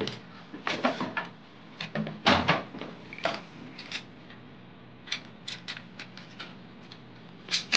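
Irregular light clicks and knocks of Wi-Fi antenna cable connectors being handled and screwed onto the threaded posts of a PCIe Wi-Fi card's bracket on the metal back of a desktop PC case. The louder knocks come about two and three seconds in.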